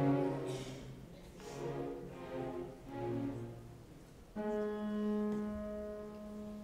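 Opera orchestra playing soft, swelling phrases led by bowed strings. About four seconds in, a single low note enters suddenly and is held steadily.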